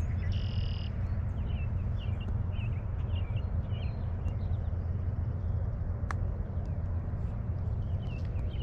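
Small birds chirping in short, repeated calls over a steady low rumble, with one sharp click about six seconds in.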